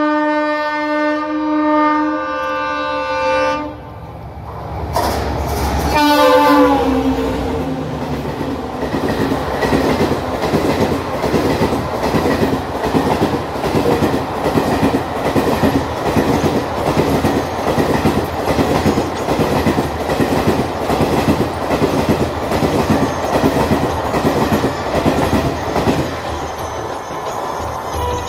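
A WDG4D diesel locomotive's horn sounds one long blast, then a second blast about six seconds in whose pitch drops as it passes. The Maharajas' Express coaches then roll through with a steady, rhythmic clickety-clack of wheels over the rail joints.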